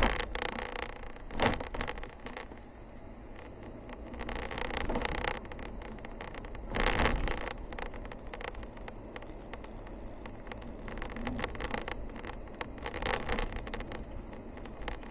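A vehicle driving along a narrow paved mountain forest road: a steady low road rumble broken by frequent short knocks and rattles, with louder surges of noise near the start, about seven seconds in, and near the end.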